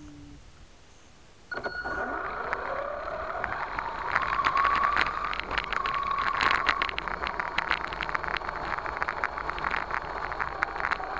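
A 1/10-scale RC monster truck pulling away about a second and a half in, heard from a camera mounted on it: its motor whine rises in pitch as it speeds up, over a dense crackle of its tyres on a dry dirt track.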